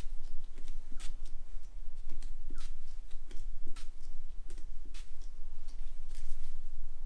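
Hand-pump spray bottle spritzing onto a freshly shaved scalp: several short hissing squirts about a second apart, each with a small click of the pump.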